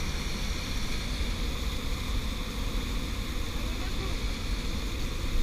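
Steady rushing of a waterfall, with wind buffeting the microphone in a fluctuating low rumble.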